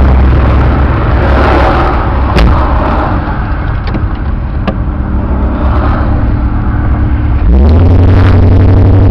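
A car engine running steadily at idle, heard from inside the car, with two sharp clicks. Near the end the sound jumps much louder, with a quick rise in pitch that then holds steady.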